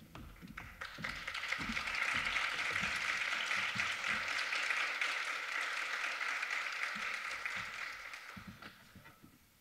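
Audience applauding: the clapping builds up about a second in, holds steady, and dies away near the end.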